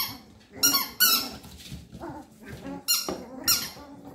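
Papillon puppies squealing and yipping as they play-fight, a series of about five short, high-pitched squeaky cries.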